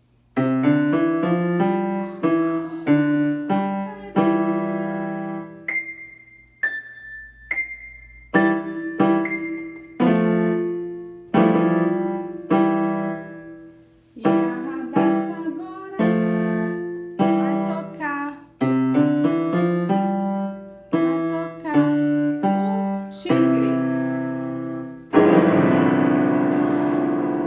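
Piano played in short phrases of struck chords, each left to ring and fade. There are a few high single notes about six to eight seconds in, and a fuller held chord near the end.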